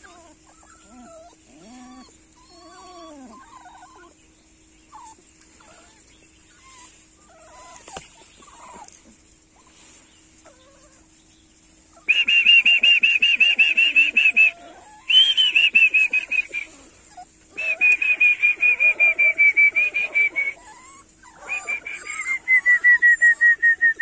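Animal calls: a few faint high squeaks at first. About halfway through they give way to loud, rapidly pulsing high-pitched calls in four bouts of two to three seconds each, the last one sliding down in pitch.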